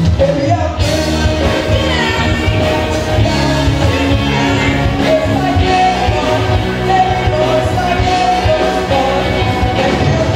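Live rock band playing with a woman singing lead over electric guitars and keyboards.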